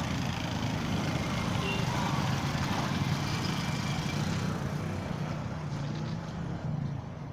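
Street traffic: a motor vehicle's engine running close by over steady road noise, easing off over the last couple of seconds.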